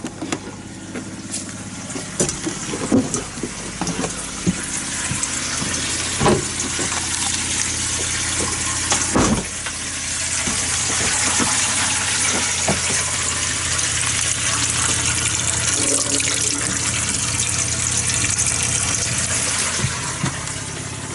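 A motorhome's water pump runs with a steady hum while water rushes through the pipes, the rushing growing louder and steadier about halfway through. Several sharp knocks come in the first half.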